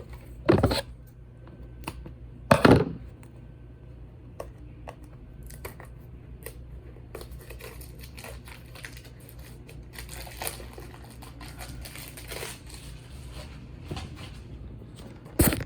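Plastic packaging being crinkled and torn while a puzzle box is unwrapped: two sharp, loud rustles in the first three seconds, then steady crinkling and crackling through the second half, with one more loud rustle at the very end.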